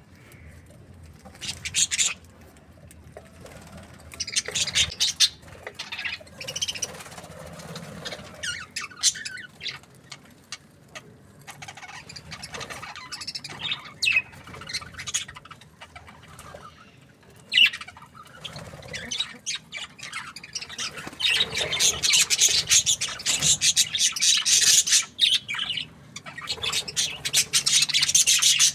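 Budgerigars chirping and squawking in quick, overlapping calls, the chatter growing thicker and louder about two-thirds of the way through.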